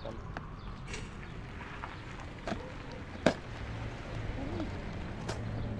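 Handling noises while unpacking BMX rims: scattered short clicks and knocks, with one sharp, loud knock about three seconds in and another near the end.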